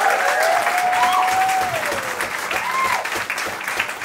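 Audience applauding and cheering loudly, dense clapping with a couple of long rising-and-falling whoops over it.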